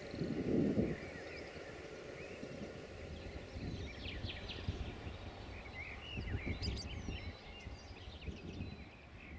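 Small birds chirping in short, scattered calls over a steady low outdoor rumble, with a brief louder rumble about half a second in.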